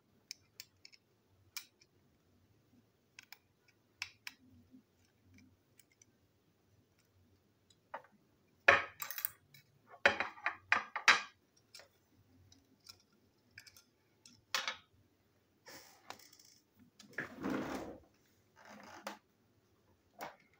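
Small plastic toy-train parts, a screwdriver and loose screws clicking and clattering on a tabletop as they are handled and set down. There are scattered light clicks, a dense run of sharper knocks about halfway through, and a longer scraping rustle near the end.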